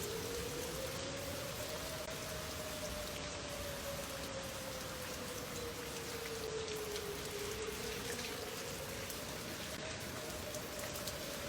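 Steady heavy rain hissing on surfaces. Under it, a faint single tone slowly rises, falls and rises again.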